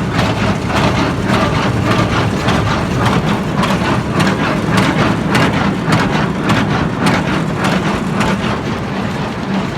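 Tractor engine running steadily with a hay baler working behind it, its drone topped by a quick, uneven clatter of knocks from the baler's machinery.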